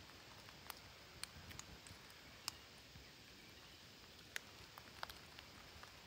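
Faint scattered sharp clicks and light rustling, about half a dozen clicks spread over a few seconds, from a flock of parakeets pecking and scrabbling at soil and tree roots.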